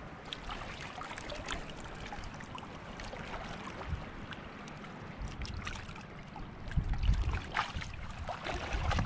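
Shallow seawater sloshing and splashing around the legs of people wading through it, with a steady wash of small waves. The splashing grows louder and heavier from about seven seconds in.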